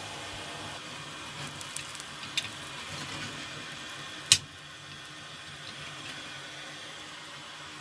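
Coal forge fire burning with a steady rush of air from its blower, a few light crackles, and one sharp knock about four seconds in.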